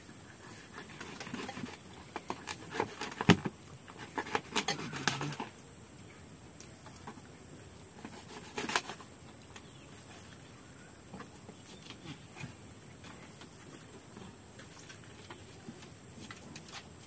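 A run of sharp knocks and clatter, loudest a little over three seconds in, then one more short clatter near nine seconds, over a faint, steady high-pitched hum.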